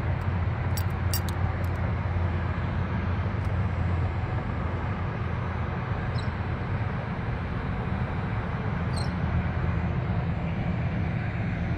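Steady low rumble of open-air ambience with no break, with two short, high, falling chirps about six and nine seconds in.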